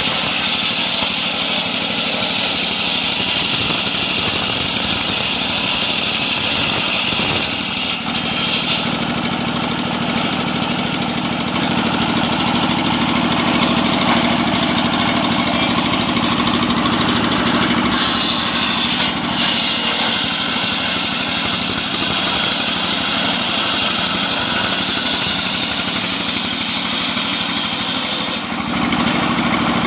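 Engine-driven homemade sawmill running steadily while sawing a coconut trunk, a steady engine tone under a loud cutting hiss. The hiss changes abruptly three times: about eight seconds in, around nineteen seconds, and near the end.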